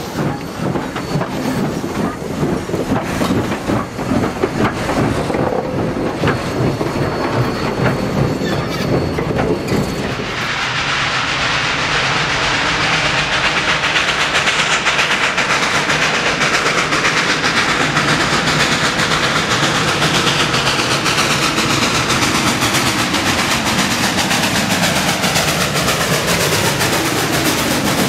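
Western Maryland Scenic Railroad No. 734, a 2-8-0 steam locomotive, moving close by with steam hissing. About ten seconds in this gives way to the louder, steady rolling of the train, its wheels clattering over the rails.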